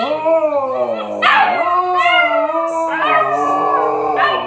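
Huskies howling together, an adult and puppies: several long howls overlapping, sliding up and down in pitch, with a higher voice joining about a second in.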